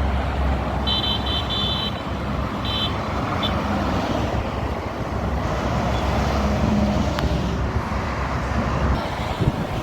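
Highway traffic passing steadily, with a low rumble of heavy vehicles. About one to three and a half seconds in, a few short, faint high-pitched beeps sound over it.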